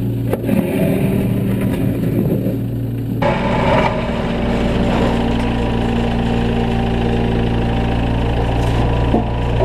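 Kubota U25 mini excavator's diesel engine running steadily under load while digging a trench, with a few sharp knocks of soil and stones against the bucket near the start. About three seconds in, the engine sound shifts and becomes fuller.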